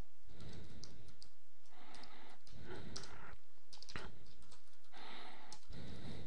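Computer keyboard being typed on: scattered key clicks in short runs.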